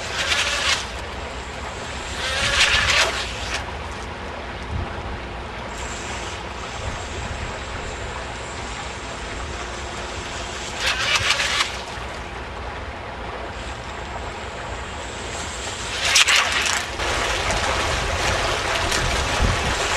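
Micro RC speedboat with two brushless motors running on the water: a faint high motor whine with hissing spray from the props, swelling loud in several spells about a second long as it speeds up, over a low rumble of wind on the microphone.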